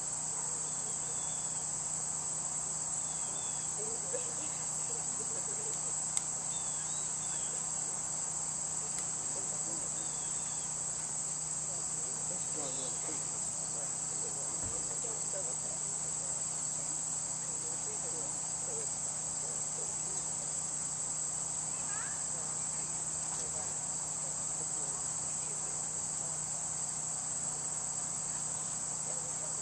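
Steady, high-pitched insect chorus that continues without a break.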